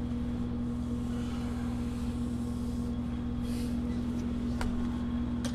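Steady hum of a running workshop machine motor, one constant tone over a low rumble, with a couple of faint clicks near the end.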